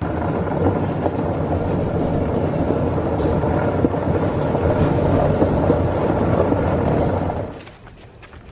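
Green garden utility vehicle driving along a gravel path: steady engine rumble and tyres crunching over the gravel, falling away about seven and a half seconds in.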